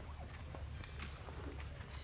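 Outdoor ambience: a steady low rumble with scattered small clicks and a few faint short chirps.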